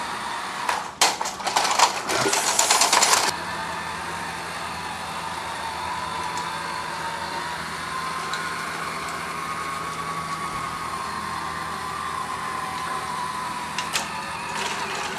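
Bachmann Big Hauler G-scale electric train running on its track: a steady motor whine that wavers slightly in pitch, over a low hum. A burst of clattering comes about one to three seconds in, and a few clicks near the end.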